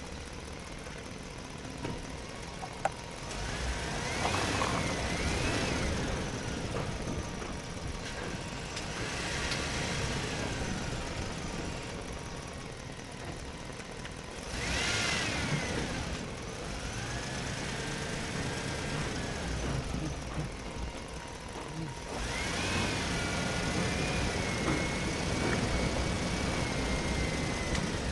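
Vehicle engine sound in several louder passes, each with a whine that rises and falls in pitch over a low rumble.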